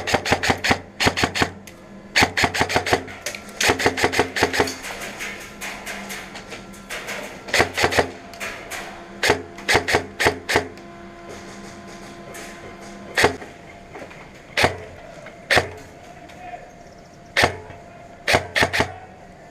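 Airsoft guns firing: several quick bursts of rapid shots in the first half, then single shots about a second apart.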